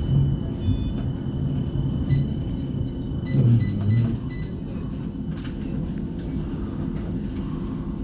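Interior of a CAF Urbos 3 tram running on its track: a steady low rumble with a stronger low hum about three and a half seconds in, as the tram nears a stop.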